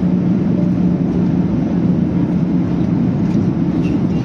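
Airliner cabin noise in flight on approach: a steady drone of jet engine and airflow heard from inside the cabin, with a steady low hum.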